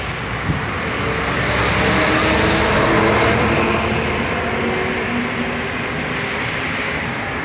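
Street traffic: a refrigerated lorry's diesel engine passing close by, loudest about three seconds in, then a diesel city bus approaching the stop.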